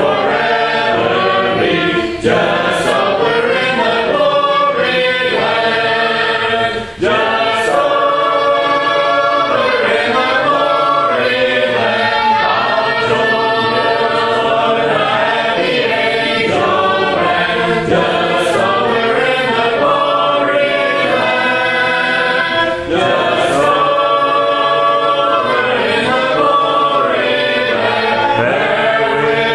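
Congregation singing a hymn unaccompanied, in several voice parts, led from the front, with short breaks between lines.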